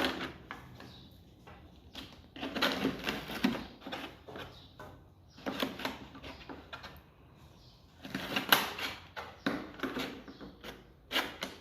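Clothes being put into a 10-litre plastic jug washer: handling noises of fabric and plastic, rustling and knocking in several short bursts.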